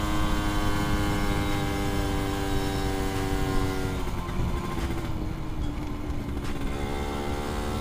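Suzuki Satria 120cc single-cylinder two-stroke engine running under way at steady revs, with wind rumble on the microphone. About four seconds in the engine note drops and gets quieter, then carries on at a lower pitch.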